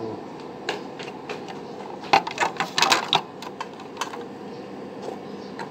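Sharp clicks and clatter of hard plastic and metal parts as a blender's drive gear is worked with a flathead screwdriver, with a quick run of louder clicks about two seconds in.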